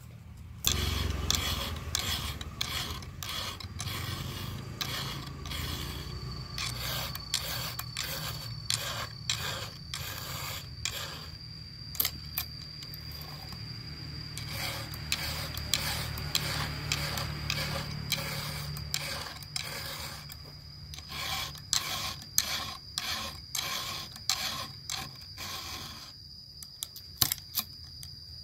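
Round file rasping across the steel cutters of a Stihl chainsaw's chain as it is sharpened, one scrape per stroke, many strokes in an uneven rhythm of about one to two a second. A steady high-pitched tone runs under most of it.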